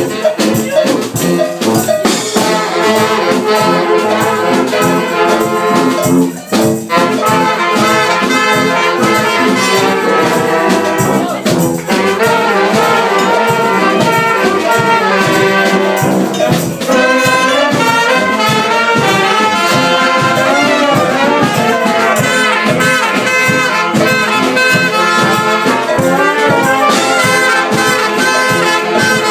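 A brass band of sousaphones, trumpets, trombones and saxophones playing a tune over a steady drum beat, with a short break about six seconds in.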